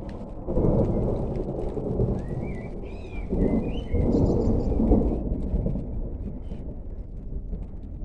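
Thunder rumbling over steady rain: one long roll about half a second in and a second, louder roll from about three seconds that fades away by about six seconds.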